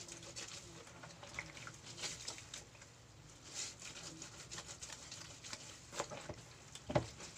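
Laundry being hand-washed in a basin of water: scattered soft splashes and squelches of wet cloth being wrung and rubbed. A short, louder sound comes near the end.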